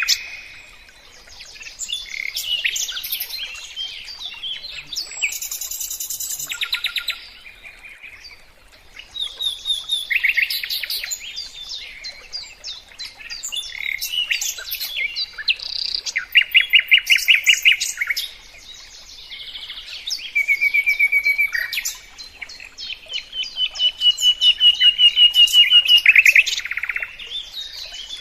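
A songbird singing a long, varied song of chirps, whistled notes and fast trills, changing phrase every second or two. The loudest parts are rapid pulsed trills, one held on a high note for a few seconds near the end.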